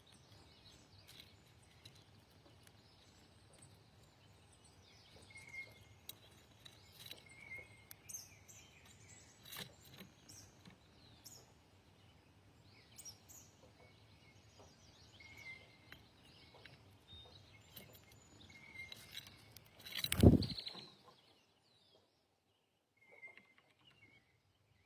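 Outdoor ambience with small birds giving short chirps every few seconds, plus some higher calls. About twenty seconds in comes a single loud thump, the loudest sound here, and the background hiss then falls away.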